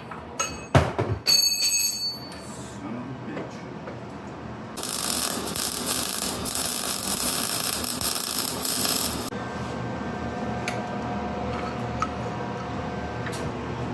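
Metal pipe being handled: a few sharp clanks with a ringing metallic tone in the first second or so. Then about four seconds of loud, even hiss, and after that a faint steady hum.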